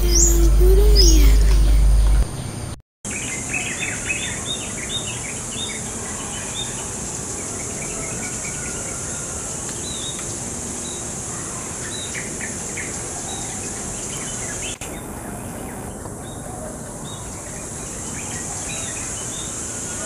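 For about the first two seconds, a channel-intro sound effect plays, with a deep boom and whistling glides, then cuts off. After that come scattered short, high chirps from small birds foraging in a tree, scarlet-headed flowerpeckers together with a brown-throated sunbird, over a steady high hiss.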